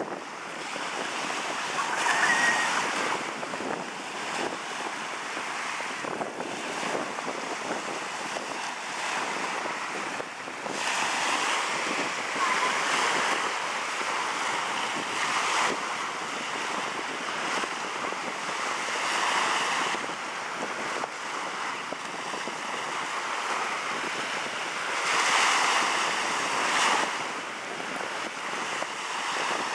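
Small waves breaking and washing up onto a sandy beach: a steady rush of surf that swells louder every several seconds as each wave breaks.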